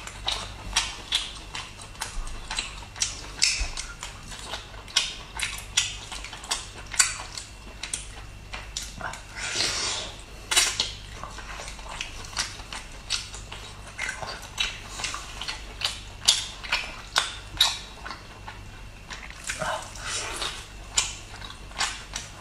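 Close-up eating sounds of someone chewing cooked chicken: irregular short mouth smacks and chewing clicks a couple of times a second, with a longer noisy stretch about ten seconds in.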